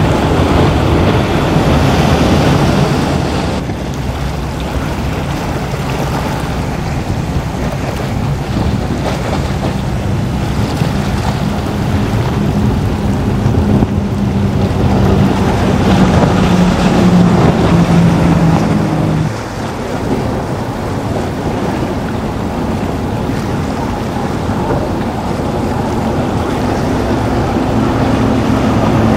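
Powerboat engines running over a steady rush of wind and water, the engine hum strongest through the middle and dropping away suddenly about two-thirds of the way through.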